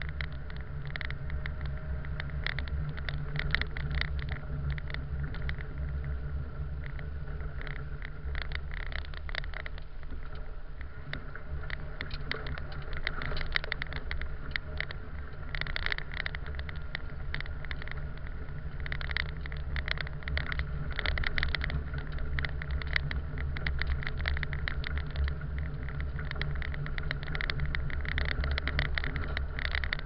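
A car driving slowly on a snow-packed road, heard from inside the cabin: a steady low engine and road drone with irregular crackling over it.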